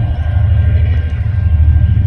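Two DQ class diesel-electric locomotives heading a loaded coal train, running with a loud, steady low rumble as they approach.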